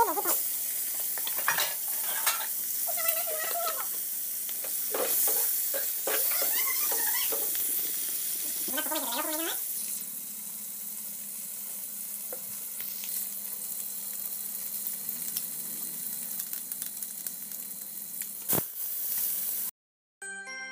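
Fish pieces coated in turmeric sizzling in hot oil in an iron wok, with a spatula stirring and scraping against the pan. About ten seconds in the sizzle gives way to a quieter steady hiss, with a sharp click near the end.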